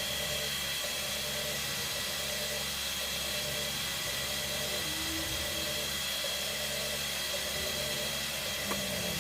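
Hair dryer blowing steadily: an even rush of air with a constant high whine from the motor.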